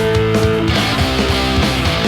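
Punk 'n' roll band recording played from a vinyl record: electric guitar chords over bass and drums with a steady beat.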